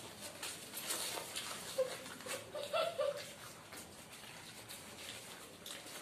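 Close-up eating sounds: paper wrappers crinkling and tearing as egg rolls are unwrapped, with chewing and a few brief mouth sounds between about two and three seconds in.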